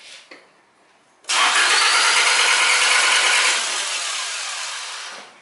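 Honda Civic 16-valve gasoline engine cranked by its starter with the timing belt removed: the camshaft and valves don't move, so the engine turns over but doesn't start. The cranking comes in suddenly about a second in, holds steady, then slowly fades away near the end.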